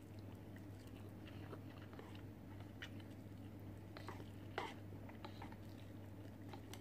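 Faint chewing and slurping of instant noodles eaten from a cup with chopsticks: scattered small wet clicks, one sharper click about four and a half seconds in, over a steady low hum.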